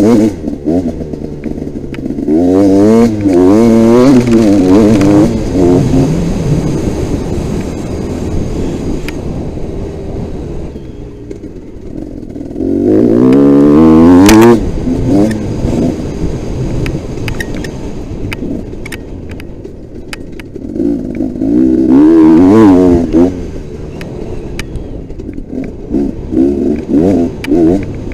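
Motocross bike engine heard from the rider's helmet, revving hard in repeated bursts with its pitch rising and falling through gear changes, easing off between the bursts, and a run of short throttle blips near the end.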